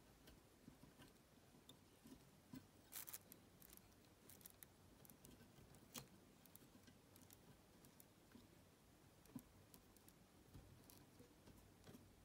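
Near silence, broken by scattered faint clicks and light rustles of hands at fly tying: a bobbin and thread being handled and pink dubbing worked onto the thread at a bead-head hook.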